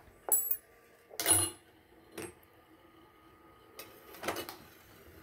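Brass rimmed 30-40 Krag cartridge cases clinking as a small brass annealer's rotating drum feeds them and drops them out: several sharp metallic clinks, the loudest a little over a second in, over a faint steady hum of the machine running.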